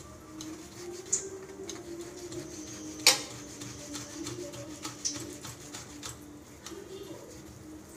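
Boiled potato being grated by hand on a stainless steel box grater: repeated soft rasping strokes, with one sharp click about three seconds in.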